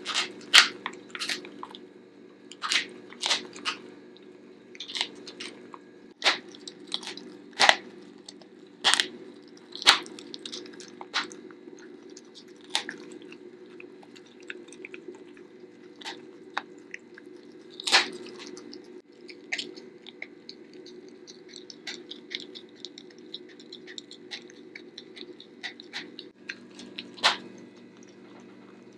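A corgi chewing a raw rabbit's foot with the fur still on, crunching the small bones between its back teeth: irregular sharp crunches, several every couple of seconds at first and sparser after about twelve seconds, with a loud crunch near the middle and another near the end.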